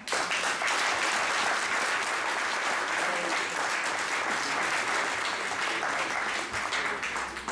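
An audience applauding, starting suddenly and dying away near the end.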